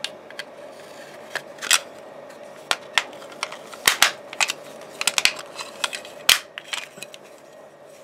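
Plastic case of an LG TV remote control being pressed back together: irregular sharp clicks and snaps as the case halves and clips seat, over a faint steady hum.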